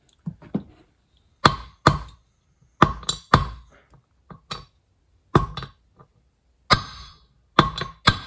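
Brass hammer tapping a double pulley down onto a John Deere mower deck spindle shaft: about a dozen sharp metal taps at an uneven pace, some in quick pairs.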